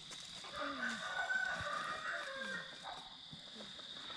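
A rooster crowing once, faint, in a drawn-out call of about two seconds.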